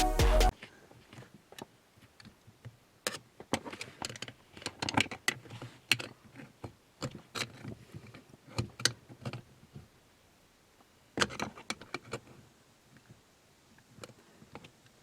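Irregular clicks, taps and rubbing from a stainless steel pedal cover with a rubber back being forced over a car's brake pedal, coming in short clusters with pauses between them. Background music cuts off about half a second in.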